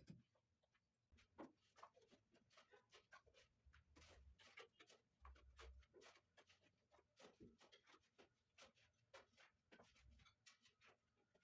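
Faint, irregular scraping and light tapping of mortar being worked by hand along the front edge of a white marble stair tread, with a few soft low thumps in the middle.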